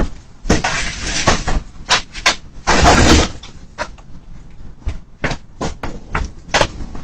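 A quick irregular series of sharp knocks and clicks with short bursts of clattering, most of it around one and three seconds in.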